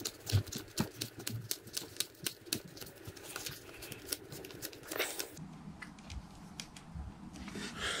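Quick, irregular small clicks and ticks of a hand screwdriver turning out the steering-arm screw on an RC truck's front suspension, with the plastic parts knocking as they are handled; the clicking thins out about five seconds in.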